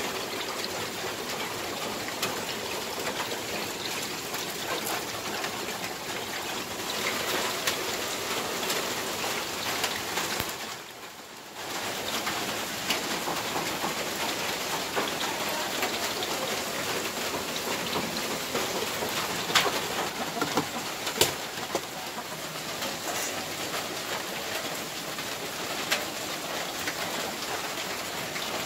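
Steady rain hiss, with a few sharp pops around the middle and near the end; it drops away briefly about eleven seconds in.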